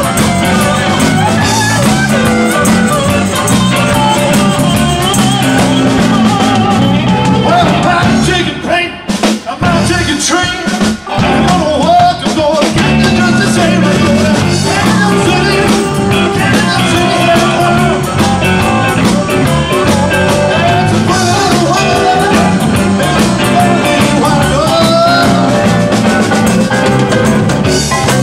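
Live rock and roll band playing a blues-style number: a male lead vocal over electric guitar, drum kit and keyboard. Near the middle the band cuts out briefly a few times between sharp hits, then carries on.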